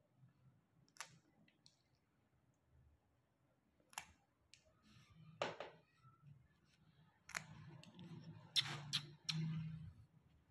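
Plier-style pet nail clipper snipping a Persian cat's claws: a series of sharp clicks at irregular intervals, with three in quick succession near the end, among faint handling sounds.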